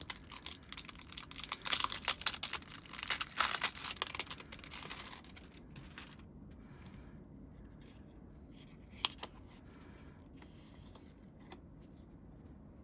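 Packaging crinkling and tearing as a packet of photo cards is opened by hand, a dense crackle that stops about six seconds in, followed by a single sharp click a few seconds later.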